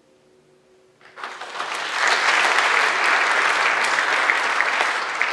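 Faint held tones fade out, then a concert audience breaks into applause about a second in, quickly swelling to full, steady clapping.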